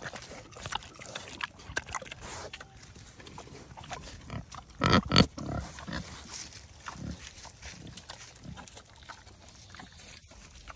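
Vietnamese potbellied pig chomping a whole tomato close up, with wet smacking and crunching clicks. About five seconds in there are two short, loud pig calls.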